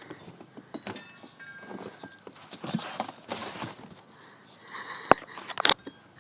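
A dog moving about and sniffing, with irregular scuffling noises and two sharp clicks a little over half a second apart near the end.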